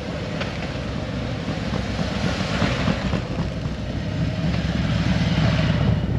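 Motorcycle engines rumbling, growing louder as the bikes approach.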